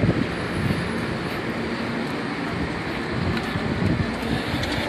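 Steady street and traffic noise with a low rumble, picked up on a phone carried along a sidewalk.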